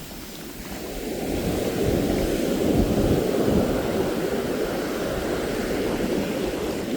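Surf waves breaking on the beach: a rushing wash that builds from about a second in, is loudest around three seconds, then carries on as a steady churn.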